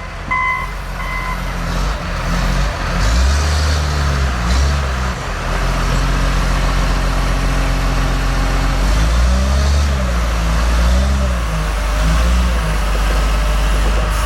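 Heavy snow-removal equipment working: a reverse alarm beeps a few more times and stops about a second in, then a large diesel engine runs loud and revs up and down repeatedly as the machine works.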